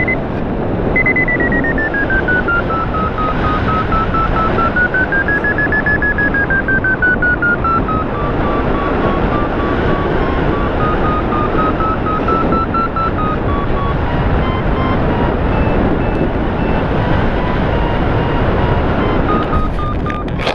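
A hang-glider variometer beeps in a quick string of short tones. Its pitch starts high, slides down, rises briefly and then settles lower and wavering, following the rate of climb. Steady rushing wind noise on the microphone runs underneath.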